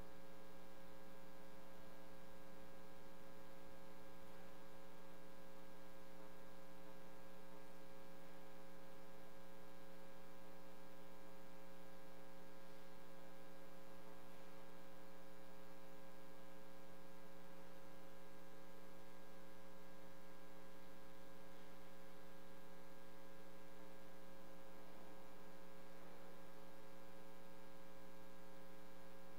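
Steady electrical hum: several constant tones held without change over a faint hiss.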